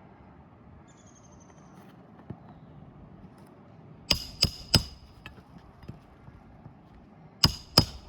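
Hammer driving roofing nails through an asphalt shingle: three quick blows about four seconds in, then two more near the end.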